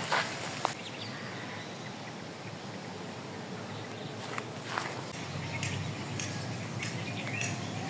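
Steady outdoor background noise with a few soft, irregular footsteps of a person walking.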